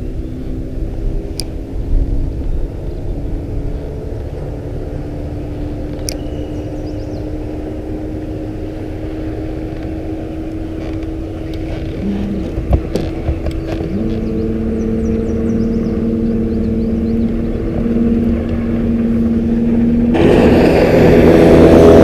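Motorboat outboard engine: a steady engine hum that grows louder and swells into a loud rush near the end as the boat speeds past close by.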